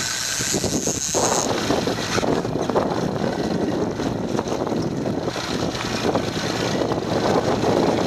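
Twin Mercury OptiMax two-stroke outboard engines running at trolling speed, a steady dense drone. A high hiss lies over it for the first second and a half and then stops.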